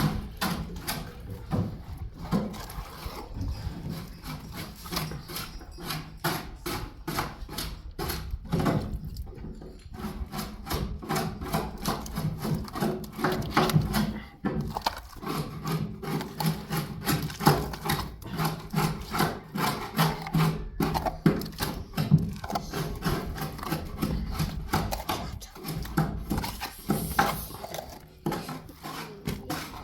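Repeated rubbing or scraping strokes, about two to three a second, keeping on without a break.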